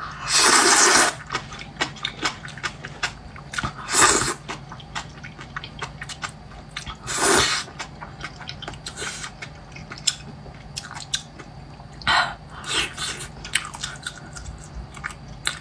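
Close-miked noodle eating: a few long hissing slurps, the first about a second in, then near four and seven seconds, between many small wet chewing and biting clicks.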